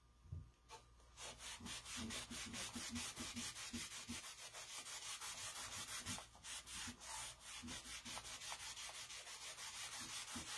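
A cloth rubbing wax over a painted wooden pumpkin, in quick back-and-forth scrubbing strokes, several a second. The strokes start about a second in and keep going, with a brief let-up around the middle.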